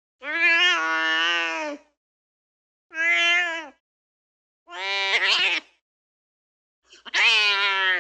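A cat meowing four times, each a drawn-out meow with gaps of silence between. The first meow is the longest, at about a second and a half. The last meow, near the end, falls in pitch as it trails off.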